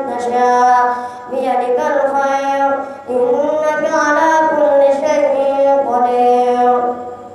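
A boy reciting the Quran in a high, melodic chanting voice, drawing out long ornamented notes, with short breaths about a second in and again around three seconds.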